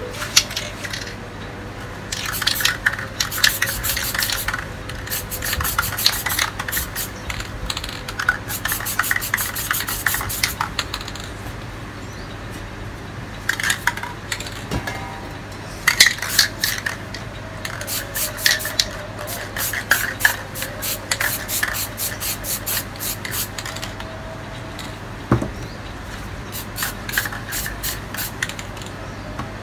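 Aerosol spray paint can sprayed in many quick, short bursts, grouped in runs with brief pauses between them, as paint is misted through a paper stencil.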